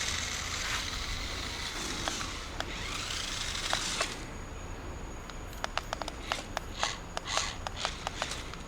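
Small 130 brushed motor and gearbox of a 1/20 scale toy RC monster truck running with a high whine for about four seconds, then cutting off. It is followed by a series of light clicks and knocks.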